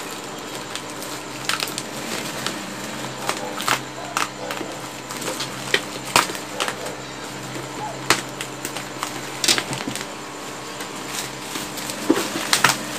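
Bubble-wrap packaging being handled and torn open around a parcel: plastic crinkling with irregular sharp crackles and snaps.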